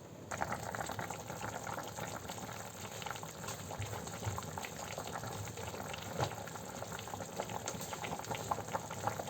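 Pot of chicken, plantain and potato potage boiling, a steady bubbling with many small pops that cuts in abruptly just after the start.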